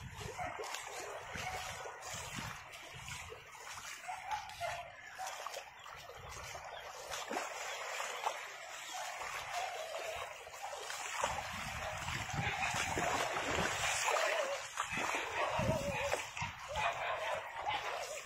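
Muddy floodwater rushing over silt, a steady watery hiss that grows louder in the second half.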